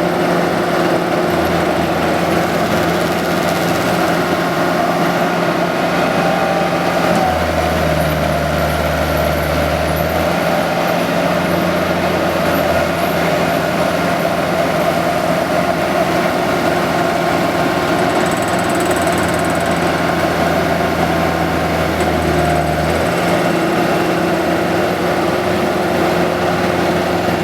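Caterpillar 268B skid steer's diesel engine running steadily, its low note changing a few times as the machine is worked.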